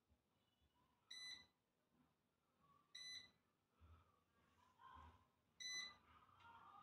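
Lock&Lock air fryer's touch-control panel beeping three times, about two seconds apart, as its buttons are pressed: short, high electronic beeps.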